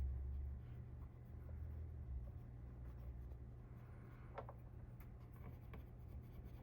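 Faint rubbing and scratching of a wipe dampened with isopropyl alcohol being worked over a CPU to take off old thermal paste. A low rumble of handling runs through about the first two seconds, and there are a couple of light clicks later on.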